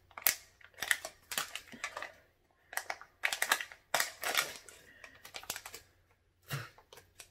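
Foil packet crinkling and crackling as it is worked and torn open with the teeth, in several short bursts of crackles.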